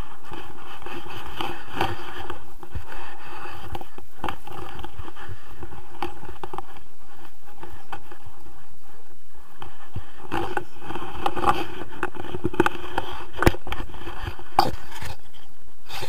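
Steady wind rushing over an action camera's microphone in flight, with many scattered clicks and knocks from the handheld camera and its mount being moved.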